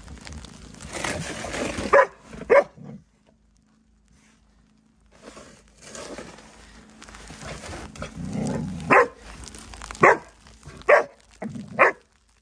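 Small dog barking in play: two short sharp barks about two seconds in, then four more spread over the last few seconds, with a rough scraping hiss between them.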